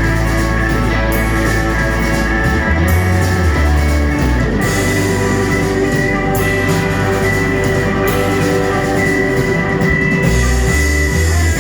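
Rock band playing with drum kit, guitar and bass, the bass notes shifting under a dense wall of sustained guitar tones.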